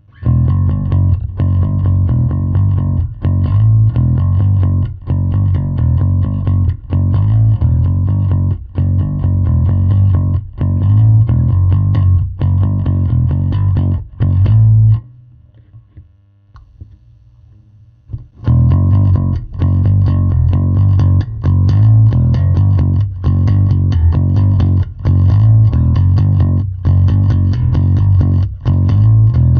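Harley Benton BZ-5000 NT five-string electric bass being played in a repeating riff. It stops for about three seconds midway, then starts again.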